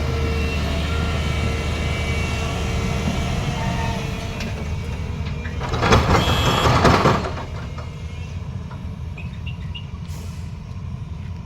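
A heavy diesel engine of construction machinery running steadily. About six seconds in, a loud hissing rush lasts just over a second, after which the engine sounds a little quieter.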